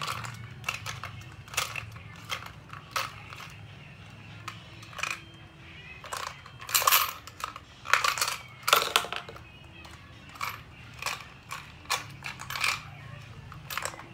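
Small wrapped candies rattling and clattering inside a toy gumball machine's clear plastic globe as it is shaken and tipped. Irregular clicks throughout, with a denser, louder burst of clattering about halfway through.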